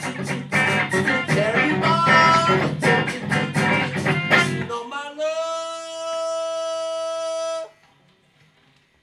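Guitar strummed and plucked hard and fast in a dense, choppy free-improvised passage. About five seconds in it gives way to a single steady held note that rises slightly at its start and cuts off abruptly after about two and a half seconds.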